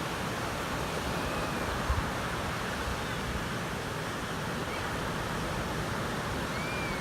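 Ocean surf washing steadily on a beach, with wind rumbling on the microphone and a thump about two seconds in. A few faint, short high calls sound over it.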